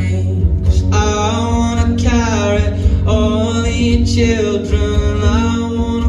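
Live band playing a song: a man singing over electric guitar, bass guitar and drums.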